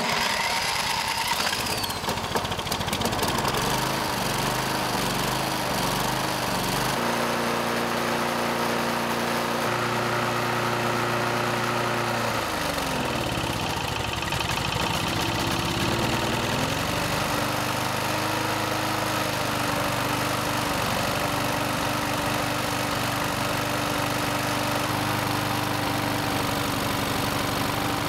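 Push lawn mower's small single-cylinder engine running steadily with antifreeze being dripped into its carburetor. Its speed sags for a few seconds about halfway through, then picks back up and holds steady.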